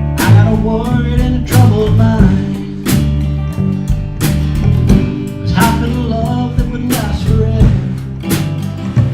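A band playing an instrumental break: guitar and bass chords under a lead melody line, with a drum backbeat hitting about every second and a half.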